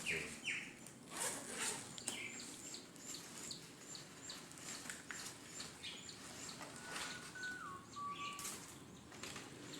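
Small birds chirping: short high chirps repeating about twice a second, with a whistled note that steps down in pitch near the end. A few sharp clicks sound about one to two seconds in.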